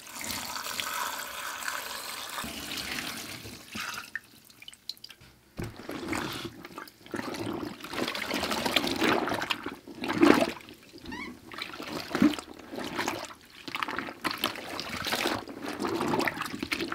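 Water poured from a pitcher into a plastic tub over wet fabric for about four seconds. After a short pause come irregular sloshing and splashing as hands squeeze and swish the painted pants in the rinse water.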